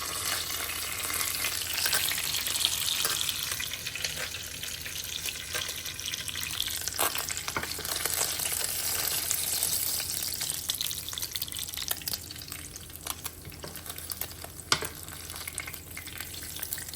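Snakehead fillet frying in canola oil in a skillet: a steady sizzle that eases somewhat in the second half. A few sharp taps cut through it, the loudest near the end.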